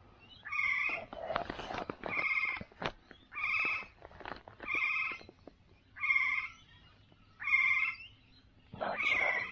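An animal calling over and over outside, about seven even, pitched calls a little over a second apart, insistent like an alarm clock.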